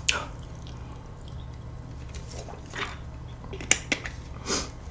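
A plastic water bottle being handled: a few short crinkles and sharp clicks, two of them close together near the end, over a low steady hum.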